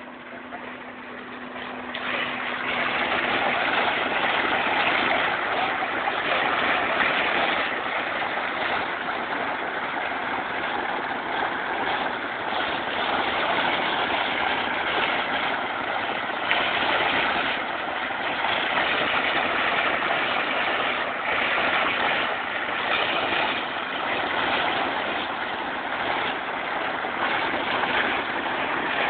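Water gushing out of a pipe outlet into a brick irrigation channel: a steady rushing that grows much louder about two seconds in.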